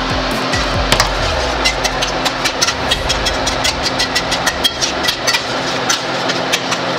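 Enchilada sauce sizzling in a hot stainless-steel skillet of plant-based ground meat as it is poured in and stirred, a steady hiss with many small crackling pops throughout and a low hum underneath.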